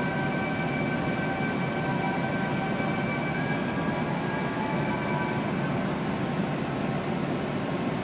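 E2-series Shinkansen running, heard inside the passenger car: a steady rumble of wheels and rushing air, with faint steady whines from the train's drive that fade out about five or six seconds in.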